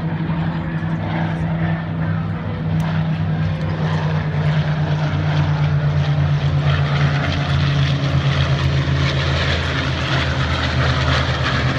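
Two single-engine propeller aircraft flying a low pass in formation, their piston engines making a steady deep drone that grows louder and drops slightly in pitch in the second half.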